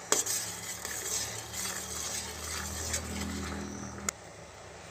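A metal ladle stirring and scraping around a steel kadhai of bubbling sugar syrup, with a clank as it first strikes the pan and a sharp knock about four seconds in. The syrup is nearly cooked to its sticky stage.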